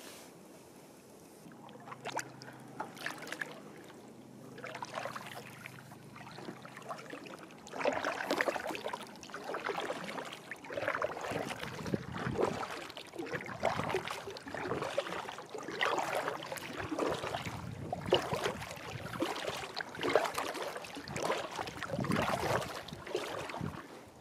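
Kayak paddle strokes: the blades dip and splash in calm lake water, light and scattered at first, then steady at about one stroke a second from about eight seconds in.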